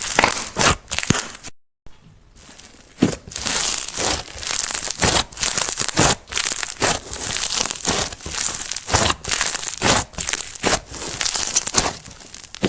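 Slime being squished, stretched and pressed by hand, with a dense run of irregular crackles, pops and crinkly squelches. It cuts out briefly about one and a half seconds in.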